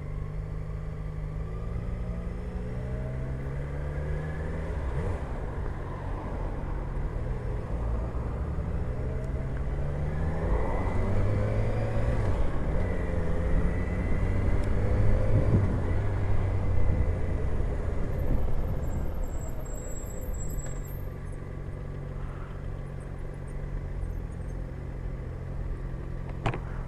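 Motorcycle engine running as it rides through slow traffic, its revs rising and falling with the throttle and gear changes. It is loudest about halfway through and settles to a steady low running note near the end.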